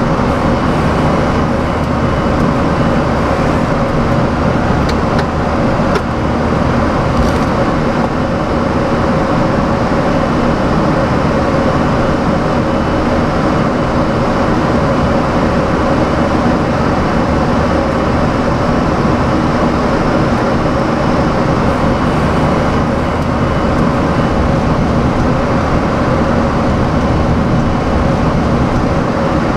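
Steady flight-deck noise of a Boeing 737-400 climbing out: a loud, even rush of airflow with engine drone and a faint steady hum, unchanging throughout.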